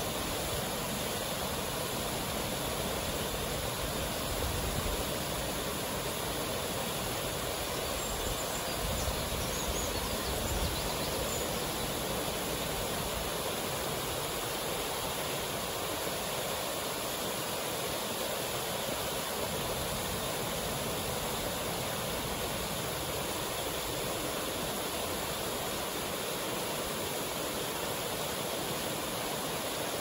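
Gyojataki waterfall and the river above it: a steady rush of water pouring over the rock ledge and flowing through the rocky channel.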